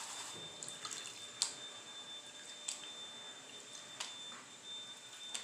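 Gold pan of paydirt being worked in a tub of muddy water: faint water movement and dripping, with a few light, sharp clicks about a second apart. A faint steady high-pitched tone runs underneath.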